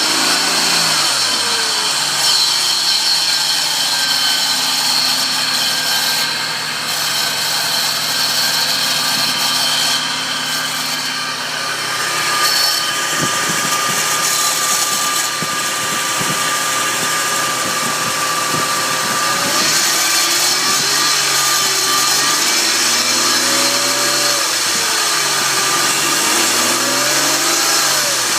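The 2002 Nissan Xterra's supercharged 3.3-litre VG33ER V6, with its Eaton M62 supercharger, running under the hood. It idles steadily, then is revved up and down several times in the last third, with a steady high-pitched tone over the engine note. The owner calls it a strange noise and suspects the supercharger.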